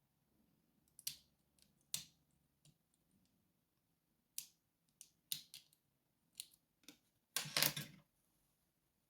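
Lock picks working a padlock: scattered small metallic clicks from the pick and pins, then a louder rattle lasting about half a second near the end.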